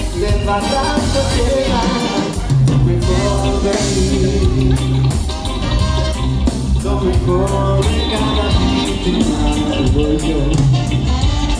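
Live reggae band playing amplified music, with electric guitars, keyboards, bass and drum kit, heard from within the audience.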